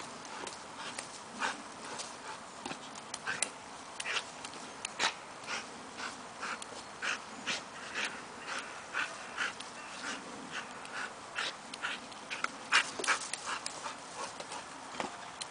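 A bulldog panting and snorting hard in short, quick puffs, about two a second at irregular intervals, as it leaps and lunges at a hanging ball. The puffs are loudest about 13 seconds in.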